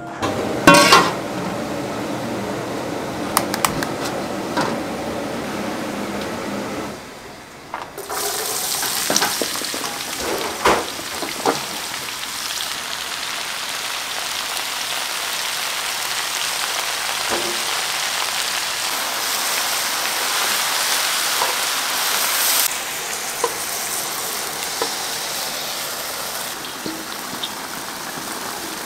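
A few knocks and clatter, then after a short drop about seven seconds in, pork cutlets deep-frying in hot oil: a steady, dense sizzle with occasional clinks.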